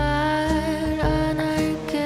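Background music: a mellow track with a steady beat about every half second, a bass line and a long held melody note.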